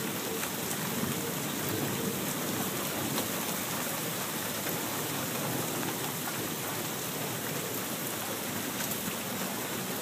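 Steady, drenching rain falling.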